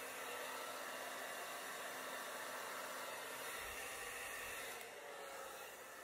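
Handheld hair dryer blowing steadily, a continuous rush of air used to blow out wet acrylic paint on a canvas. The sound eases a little about five seconds in.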